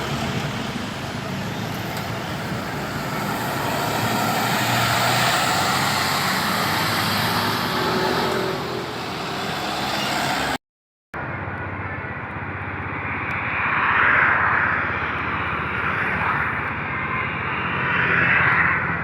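Heavy diesel buses running and passing, with steady engine and road noise. The sound drops out for half a second about halfway through, then resumes duller, swelling twice as vehicles go by.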